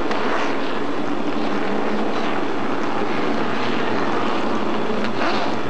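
Several pro race trucks' crate engines running together on the oval, a steady mechanical drone, with one passing louder a little past five seconds in.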